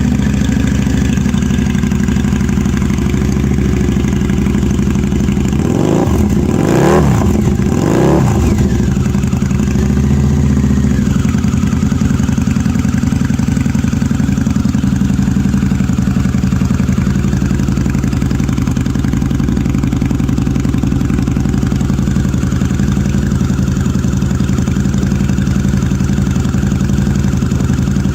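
Harley-Davidson V-Rod's liquid-cooled V-twin idling through Tab Performance slash-cut aftermarket tailpipes. About six and eight seconds in, two quick throttle blips make the pitch rise and fall, then it settles back to a steady idle.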